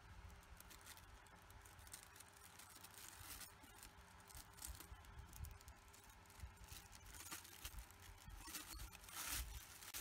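Thin plastic bin liner crinkling and rustling faintly as a cockatiel climbs about on it and into the bag, loudest near the end.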